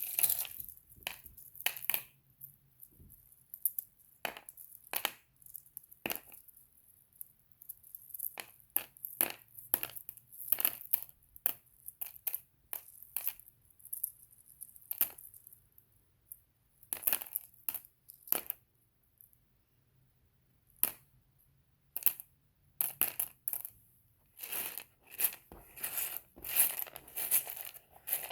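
Small rough opal chips clicking and clinking against each other and a hard surface as they are handled and moved about, in irregular bursts of sharp little clicks with short pauses.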